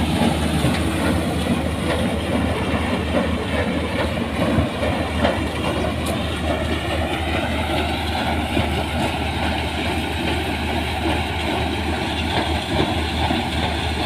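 New Holland combine harvester running under load as its header takes in heaped dry sunflower heads: a steady, dense mechanical noise over a low engine hum. A faint whine rises slightly about halfway through.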